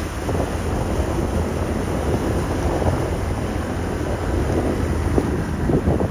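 Wind buffeting the microphone on a moving motor scooter, a steady rushing rumble with the ride's vehicle noise beneath.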